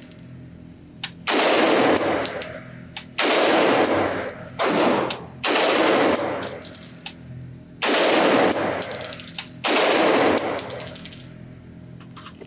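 Springfield Armory Saint AR-15 in 5.56 NATO fired semi-auto in slow, deliberate shots, about six in all, one to two and a half seconds apart. Each shot rings out with a long echo off the walls of an indoor range.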